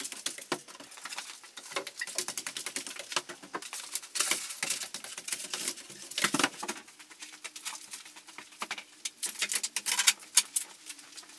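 Busy, rapid clatter of many small clicks and knocks from objects being handled and moved about, with no let-up, a few louder knocks near the middle and near the end.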